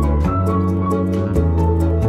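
Background music: a calm instrumental track with sustained chords, a bass note that changes about every second, and a light steady beat.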